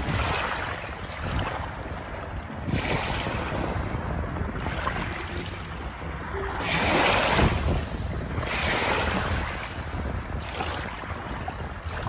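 Small waves lapping on a shallow pebble-and-shell shore, washing in and draining back every two seconds or so, over a steady low rumble. The biggest wash comes about halfway through.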